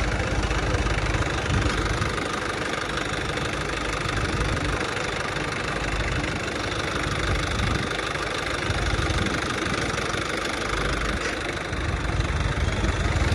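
Swaraj 855 FE tractor's three-cylinder diesel engine running steadily under load while pulling a harrow through wet soil.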